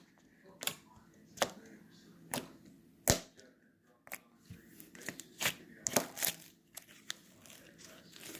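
Slime being worked by hand, giving a series of sharp, irregular pops and crackles, several close together in the second half.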